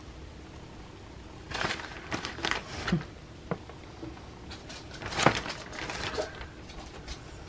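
Crinkling of a plastic bag of shredded cheddar cheese and rustling of the shreds as they are sprinkled by hand onto a baking sheet, in several short bursts starting about a second and a half in.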